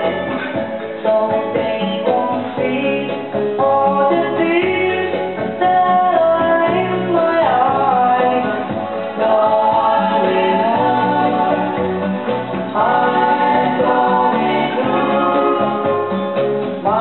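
Hawaiian music played from a vinyl record through a Denon DL-103R moving-coil cartridge: guitar with singing, several notes sliding up and down in pitch.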